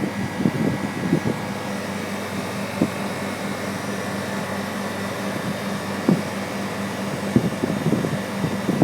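Bristol refrigeration compressor and condenser fans of a Fabdec condensing unit running steadily, a continuous hum with a few short knocks. The compressor is running normally after restarting on a new start relay and start capacitor.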